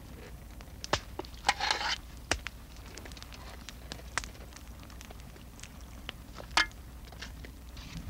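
A fork clinking and scraping against a metal pot as pieces of meat are lifted out: a few scattered sharp knocks and a short scrape, over a steady low hum.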